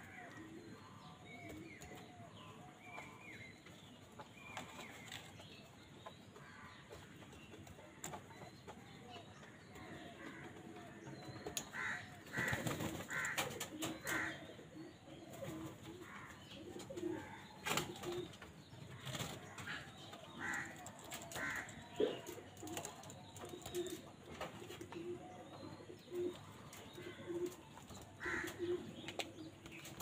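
House crows calling around a food bowl: scattered short calls, louder and more frequent from about halfway, with a low call repeated at an even pace and a few sharp taps underneath.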